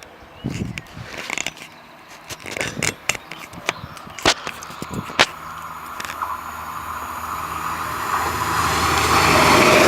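A vehicle with a low engine hum under a rushing noise grows steadily louder over the last few seconds. Scattered sharp clicks and knocks come before it.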